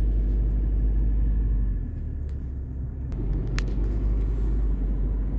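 Car cabin noise while driving: a steady low engine and road rumble that eases off for about a second a couple of seconds in, with a sharp click about three and a half seconds in.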